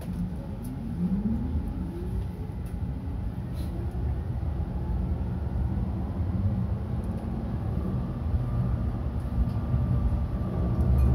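Tram pulling away from a stop, heard from inside the car: a low running rumble that grows louder as it gathers speed, with a rising motor whine in the first couple of seconds. A thin, steady higher whine joins near the end.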